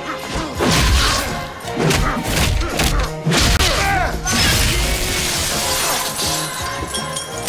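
Fight-scene sound effects over a dramatic music score: several heavy body impacts about a second apart, then glass shattering and crashing for several seconds from about the middle.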